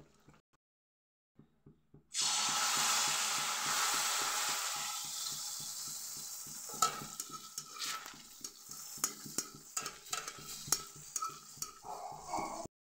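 Banana malpua batter frying in hot oil: a sudden loud sizzle starts about two seconds in as fresh batter hits the oil, then fades over the next few seconds. After that, a quieter sizzle goes on under light clicks and taps of a ladle against the pan.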